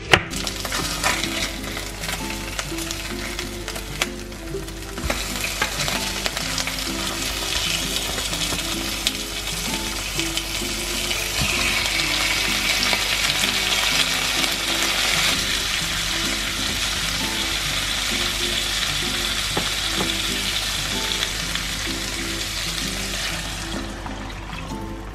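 Tomatoes, shallots and garlic sizzling as they fry in oil in a frying pan, a steady hiss that grows louder after a few seconds. Near the end the sizzle dies away as water is poured into the pan.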